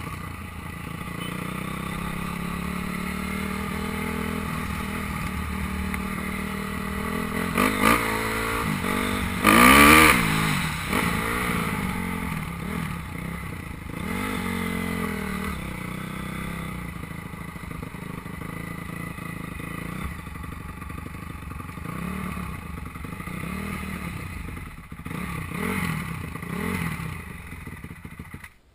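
250 cc motocross bike engine running under the rider, heard from a helmet-mounted camera. It revs up and down in several quick blips about eight to ten seconds in, the loudest moment, then runs at lower revs as the bike slows.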